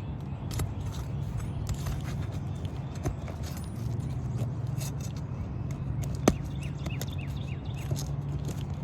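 Roofing nails being worked out of the second course of asphalt shingles: scrapes and small clicks, with one sharp click about six seconds in, over a steady low hum.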